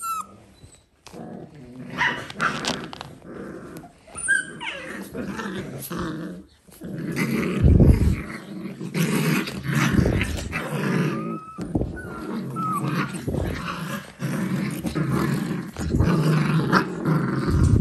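Dalmatian puppies play-growling and yapping as they tussle over a chew toy, with a few short whines and several dull thumps.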